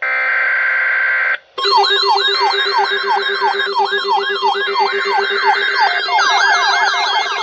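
A short burst of weather radio digital alert header tones, then several weather radio receivers' electronic alarms going off together. The alarms make repeated falling sweeps about twice a second, over a faster high warble and a steady low tone, and more sweeps join near the end: the receivers are activating for an incoming alert.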